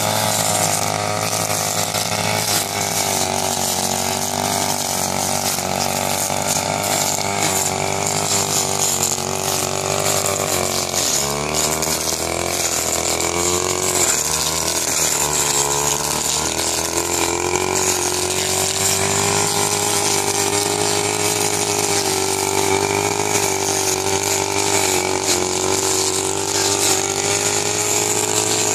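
Backpack petrol brush cutter engine running steadily at high revs while its blade cuts rice stubble, the pitch dipping and wavering for a few seconds about midway.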